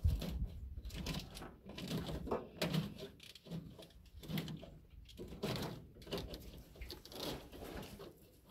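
Corrugated plastic wiring loom rustling and scraping in irregular strokes as the loom-wrapped wire is pulled and routed through the engine bay.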